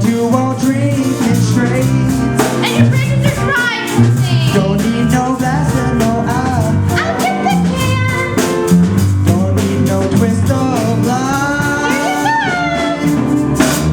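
A live band playing a musical-theatre song, with drums keeping a steady beat under a bass line, while a singer's voice wavers in and out on top.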